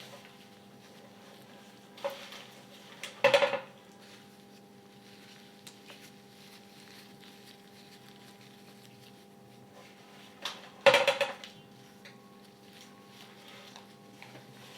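Gym chalk dropped into water in a container, twice, each time a light tap followed by a short burst of sharp clattering knocks.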